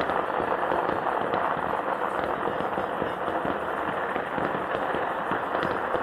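Fireworks going off in a dense, continuous crackle of many small rapid bangs.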